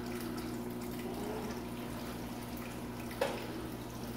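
Steady kitchen background: a low, even hum under a light watery hiss, with one sharp clack a little past three seconds in.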